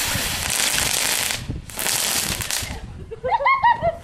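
Ground fountain firework spraying sparks with a steady hiss, which drops out briefly about one and a half seconds in, comes back, then stops near three seconds. It is followed by a quick run of short, high-pitched squeals, the loudest moment.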